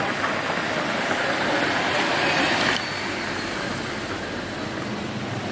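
A small car driving slowly past on a paved street, its engine and tyre noise swelling as it nears and then cutting off abruptly under three seconds in; after that a quieter, steady outdoor background.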